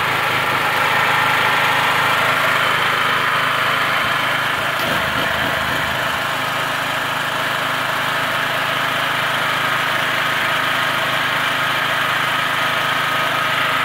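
MultiPro GGA-3900 portable gasoline generator's engine running steadily at an even speed.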